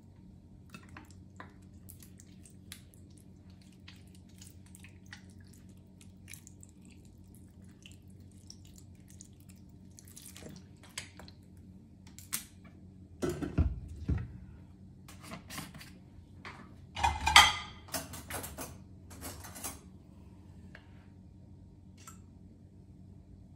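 Kitchen handling sounds: scattered light clicks and taps, then a few dull knocks and a loud clatter of pots and dishes about three-quarters of the way through, followed by a few more taps.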